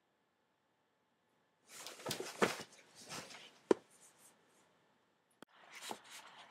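Handling noise: rustling with a few sharp knocks, then a click and a short rustle, as a thick hardback book is picked up and opened and the camera is jostled.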